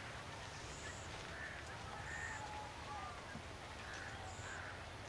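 Faint crows cawing every second or so, with short high bird chirps between them, over a steady low outdoor hum.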